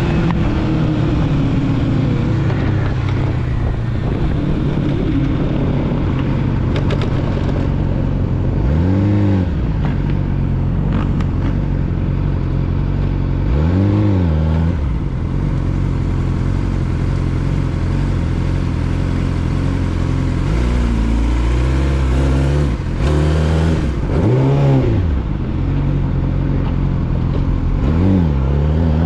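Yamaha YZF-R6 inline-four sport bike with a full aftermarket exhaust system, ridden at mostly steady revs. Several quick throttle blips rise and fall in pitch, and the engine revs climbing near the end.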